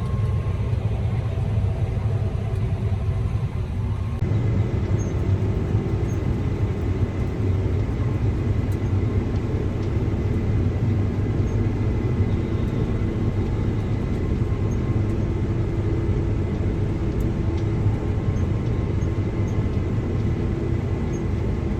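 Combine harvester running steadily while cutting wheat: a continuous low drone with faint steady whining tones. Its character shifts slightly about four seconds in.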